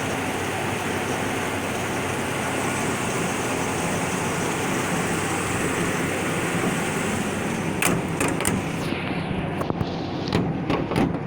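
A Chevy truck running, a steady engine and road noise with a low hum. Several sharp clicks and knocks come in the last few seconds.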